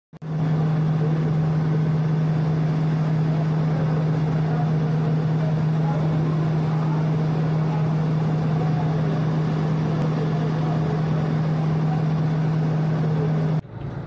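A steady machine drone: a constant low hum under a dense rumble, unchanging throughout, then cutting off abruptly near the end.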